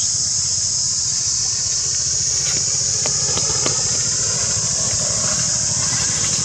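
Steady high-pitched drone of an insect chorus, over a low rumble, with a few faint ticks in the middle.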